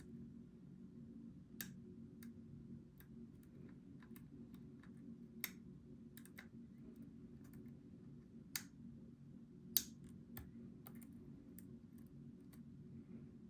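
Lock picks working the pins of a Goal V18 pin-tumbler lock under tension: faint, irregular small metallic clicks, with four sharper clicks spread through, over a steady low hum.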